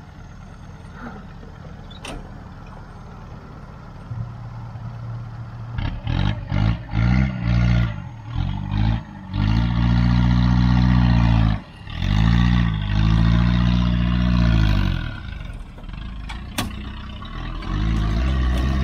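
Barra-swapped Nissan Patrol's turbocharged Ford Barra straight-six engine working a 4WD up a rock step. It runs low at first, then revs in a string of short bursts, holds two long high revs of about two seconds each, eases off and climbs again near the end.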